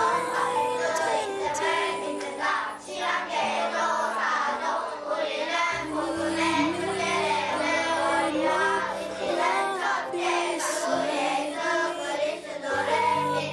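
A song sung by children's voices with instrumental accompaniment.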